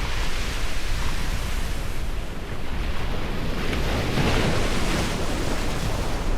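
Ocean waves breaking and washing ashore in a steady rush of surf, one wave swelling and breaking about four seconds in before easing. Wind rumble on the microphone runs underneath.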